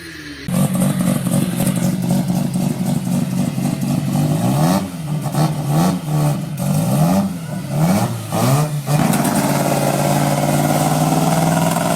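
Mazda RX-7 rotary engine with a loud exhaust, running at steady revs, then blipped up and down several times with sharp exhaust pops, then held at steady high revs.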